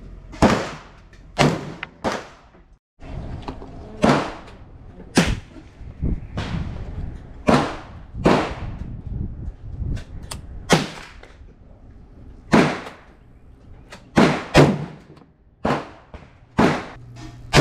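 Gunfire from AR-15-type rifles in .223/5.56: well over a dozen sharp shots at irregular intervals, some loud and close, others fainter, each with a short ringing tail.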